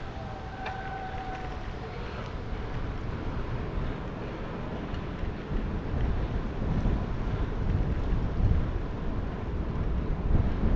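Wind buffeting a GoPro Hero8's microphone on a moving bicycle: a low, gusty rumble that gets louder in the second half.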